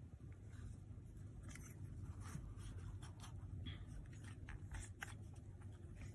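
Faint scratching and light ticks of fingers handling a plastic hair clip on its cardboard backing card, over a low steady hum.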